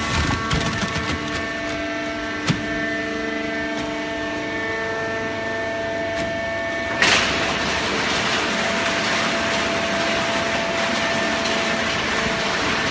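Hydraulic cardboard baling press running: a steady machine hum with a few knocks, then about seven seconds in a sudden louder rushing noise starts and keeps on.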